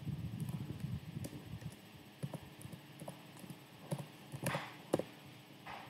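Faint, irregular clicks of keys being typed on a computer keyboard, a few separate keystrokes spread over the seconds.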